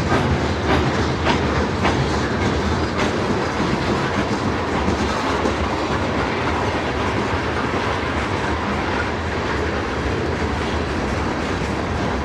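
Freight train cars rolling past, their wheels clicking over rail joints a few times in the first three seconds, then a steady rumble of steel wheels on rail.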